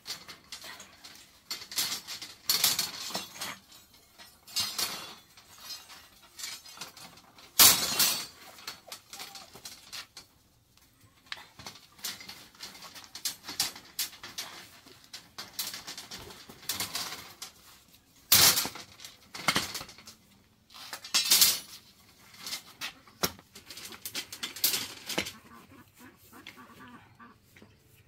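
Irregular scrapes and clinks of a hand tool at work, a second or two apart, with a few heavier strikes among them.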